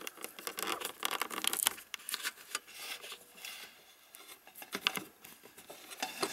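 Paintbrush scrubbing and tapping in a watercolour palette while mixing paint: faint, irregular light scrapes and small clicks, busiest in the first two seconds and again near the end.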